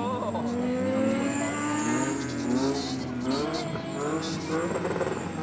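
Car engine revving up and down, its pitch rising and falling over a second or two at a time.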